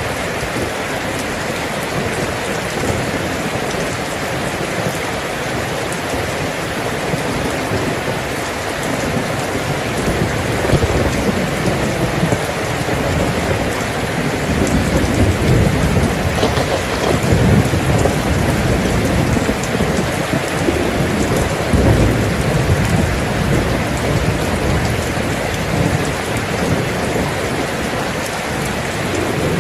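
Steady rain falling, with thunder rumbling underneath; the rumble swells louder in the middle.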